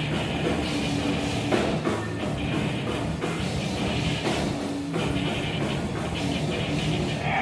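Rock band playing live, with a drum kit keeping a steady beat under guitar; an instrumental passage without vocals.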